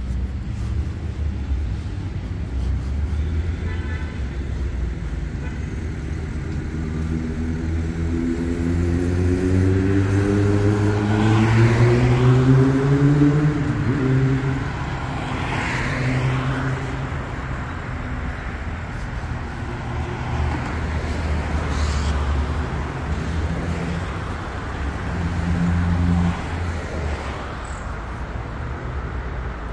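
Busy street traffic: a steady low rumble of engines with several vehicles passing. About a quarter of the way in, one engine's pitch rises as it accelerates past, the loudest sound here.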